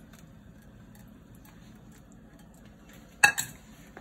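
Quiet kitchen room tone, then about three seconds in a sharp clank with a smaller knock right after: the saucepan being set down on a hard surface after pouring.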